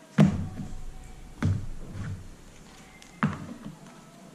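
Four dull knocks on a banana-leaf-covered tabletop, the first the loudest, as a plate of fried banana slices is set down and the slices are laid out by hand.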